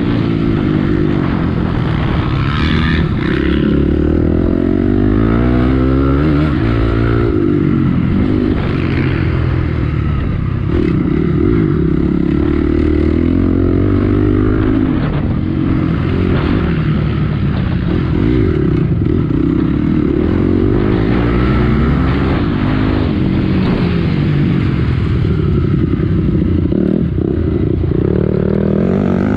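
Honda CRF250X enduro bike's single-cylinder four-stroke engine being ridden hard on a dirt motocross track, revving up and dropping back over and over as the throttle is opened and shut through the turns and straights.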